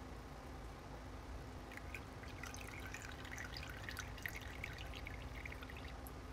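Goat milk trickling and dripping through a paper filter in a metal strainer into a glass jar, a quick patter of small drips starting about two seconds in. A faint steady hum runs underneath.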